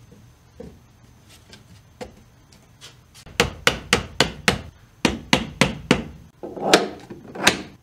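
A few faint clicks of handling, then a quick series of sharp knocks on wood, about four a second, starting about three seconds in, with a few louder knocks near the end.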